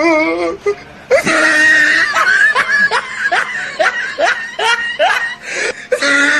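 Laughter: after a brief wavering held voice at the start, a long run of short rising laughs follows, about two a second, from about a second in until shortly before the end.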